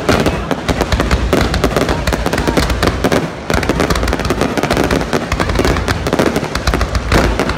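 Fireworks display: a rapid, continuous barrage of aerial shell bursts and crackling, many reports a second, over low booms.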